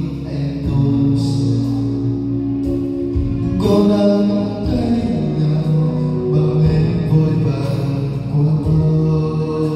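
Music with long held notes that change pitch every second or so over a steady low accompaniment.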